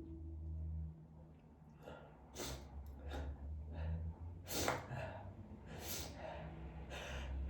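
A person sniffing and gasping between sneezes: a handful of short, breathy inhalations at irregular intervals, the strongest about halfway through.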